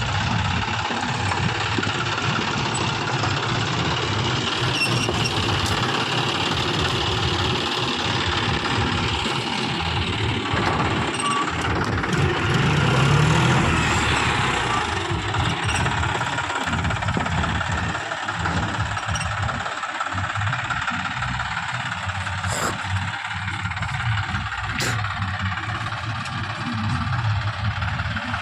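John Deere tractor's diesel engine running steadily with a knocking clatter, swelling briefly about halfway through.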